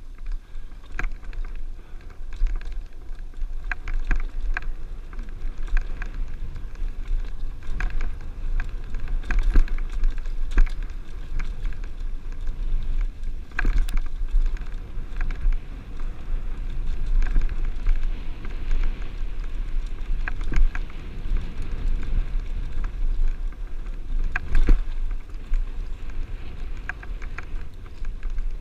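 Mountain bike riding over slickrock, heard from a helmet-mounted camera: steady wind buffeting and rumble on the microphone, with scattered sharp knocks and rattles from the tyres and bike striking rock ledges. The loudest knocks come about halfway through and again near the end.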